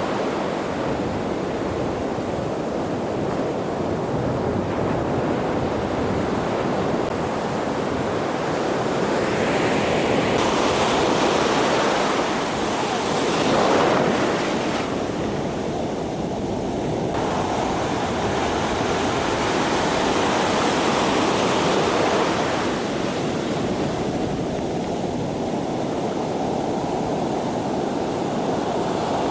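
Pacific Ocean surf breaking and washing up the beach: a continuous rush of water that swells and ebbs as the waves come in, loudest about halfway through.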